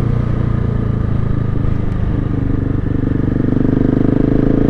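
Husqvarna 701's single-cylinder engine running through an aftermarket Remus exhaust as the motorcycle rides along, its note climbing slightly in pitch over the second half as it picks up speed.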